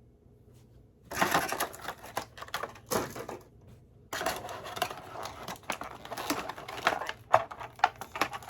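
Small plastic items and packaging handled close to the microphone: rustling, crinkling and clicking in two stretches, the second starting about four seconds in and running on with many small clicks.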